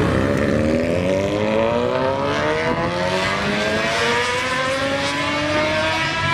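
Motorcycle engine accelerating, its pitch rising steadily.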